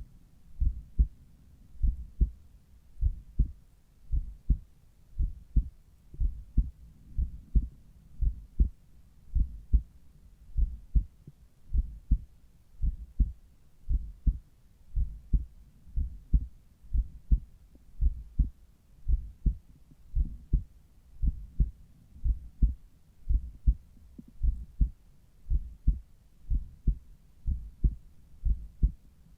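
Human heart sounds heard at the cardiac apex through a Littmann Cardiology IV stethoscope. The heartbeat is steady and regular, each beat a low double thump (lub-dub).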